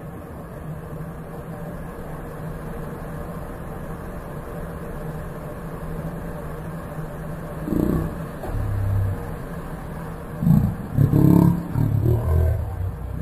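A steady low machinery hum, joined from about eight seconds in by louder, irregular low rumbling bursts.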